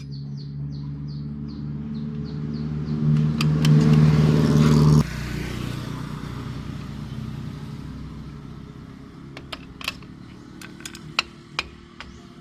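A motor vehicle's engine running and growing louder for about five seconds, then cutting off abruptly, leaving a fading hiss and a few sharp clicks near the end.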